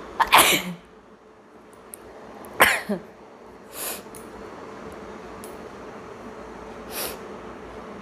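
A woman sneezes twice, loud and short, the second about two and a half seconds after the first, followed by two softer breath sounds.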